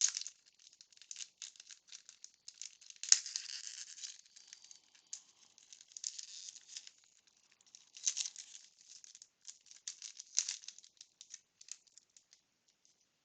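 A 1992 Bowman wax pack and its baseball cards being handled: soft crinkles of the wax wrapper and quick flicks and slides of cards against each other, coming in spells, busiest about three, eight and ten seconds in.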